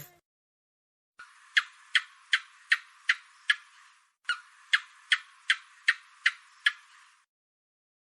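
Gecko chirping: two runs of about seven sharp, clicking chirps each, roughly two and a half a second, with a short pause between the runs a little past the middle.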